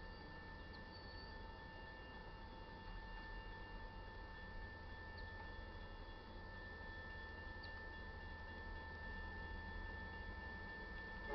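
Railroad grade-crossing warning bell ringing faintly, heard as one constant high tone over a low rumble.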